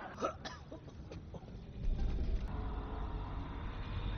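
A deep, steady low rumble from a film soundtrack that sets in about two seconds in.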